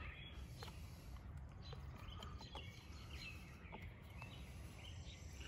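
Quiet outdoor ambience: small birds chirping faintly and intermittently in the background over a low steady rumble, with a few faint clicks.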